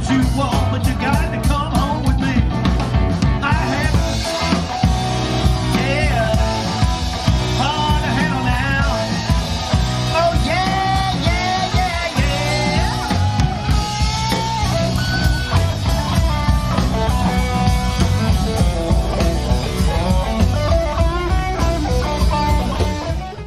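Live rock band playing through a PA system, with electric guitar, bass, drums keeping a steady beat and a sung melody line, heard from out in the audience about 80 ft from the stage. The music fades out quickly at the very end.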